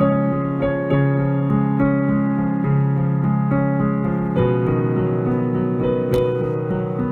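Background music on an electric piano: held keyboard chords and notes that shift about four seconds in, with a single sharp click about six seconds in.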